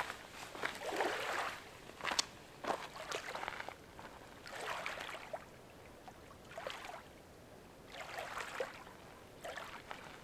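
Small waves lapping against a stony lakeshore, a splash with little clicks of water on stones about every two seconds.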